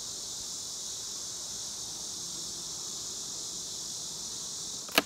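Steady high-pitched insect chorus, with a single sharp knock near the end.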